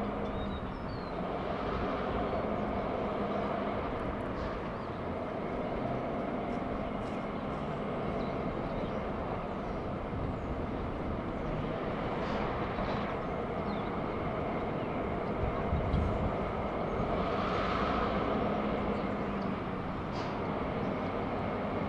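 CN diesel freight locomotive drifting slowly toward the listener, its engine running with a steady low drone.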